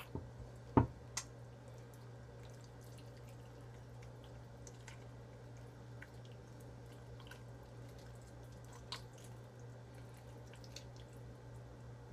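Bare hands pulling the guts out of a channel catfish's opened belly: faint, irregular wet clicks and squelches over a steady low hum, with one sharp knock about a second in.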